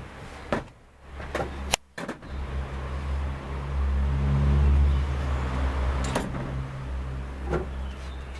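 A motor vehicle engine runs nearby as a steady low hum that swells in the middle and then eases. Over it come a few sharp clicks and taps from hand tools and small parts being handled.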